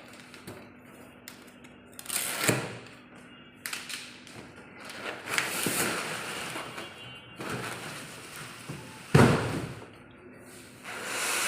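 Irregular knocks and thuds from handling a new washing machine and its packaging. The loudest thud comes about nine seconds in, and rubbing, scraping noise follows near the end.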